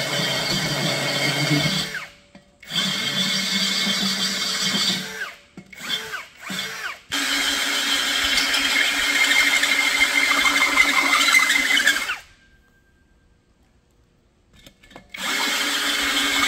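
Cordless drill with a hole saw cutting into the side of a glazed earthenware onggi jar. It runs in several goes: two runs of a few seconds, a couple of short blips, then a long run of about five seconds. After a pause of about three seconds it starts again briefly near the end.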